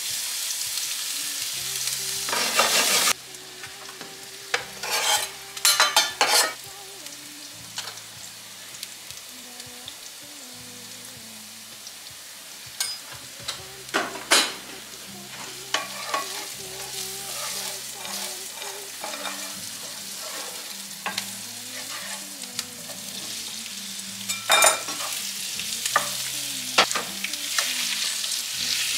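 Food frying in oil in a skillet, sizzling, while a spatula stirs and scrapes it around the pan, with a few sharp knocks of the utensil on the pan. The sizzle is loud for the first few seconds, stops abruptly, then goes on more quietly and grows louder again near the end.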